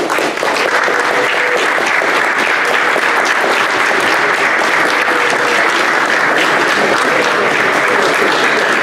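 Audience giving a standing ovation: loud, dense, steady clapping from a large crowd.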